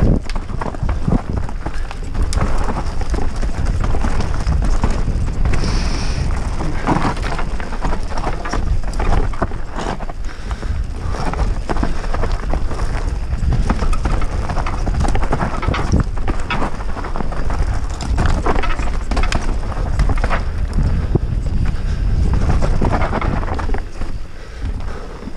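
Orbea Rallon R5 29er mountain bike ridden along a rough dirt trail. Heavy wind rumble on the action camera's microphone, with continual knocks and rattles from the tyres, chain and frame over bumps.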